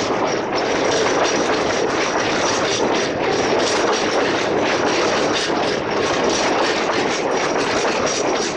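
Container flat wagons of a freight train rolling past, a steady rumble and clatter of steel wheels on the rails with a faint high steady whine above it.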